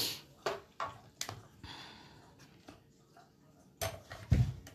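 Clear plastic cutting plates for a mini die-cutting and embossing machine being handled and stacked. A few light clicks, then a short sliding scrape, and near the end several heavier knocks as the plate stack is set onto the machine's platform.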